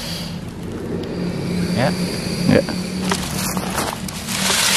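King cobra hissing: a breathy hiss that builds over the last two seconds, over a steady low hum.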